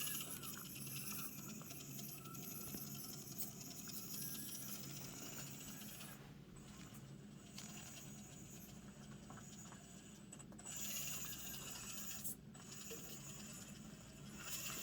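Axial SCX24 micro RC crawler climbing over rough terrain: a faint whine from its small electric motor and drivetrain, with light scratching and rattling of the tires and chassis on the surface, pausing briefly a few times.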